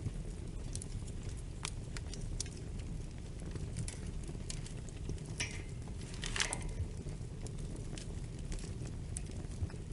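Wood fire crackling in a fireplace: scattered sharp pops and snaps over a steady low rumble of the flames, with a couple of brief hisses a little past the middle.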